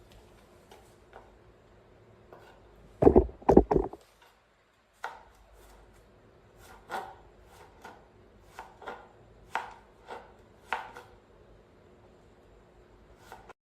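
A series of sharp knocks and taps. There is a quick cluster of loud ones about three seconds in, then scattered lighter ones, and the sound cuts off abruptly just before the end.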